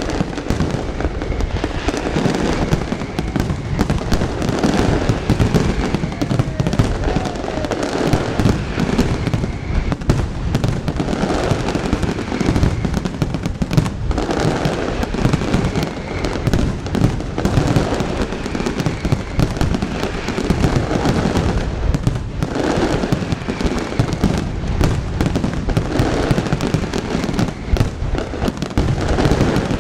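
Fireworks display going off in a dense, continuous barrage of bangs and crackles, the reports overlapping with no gaps.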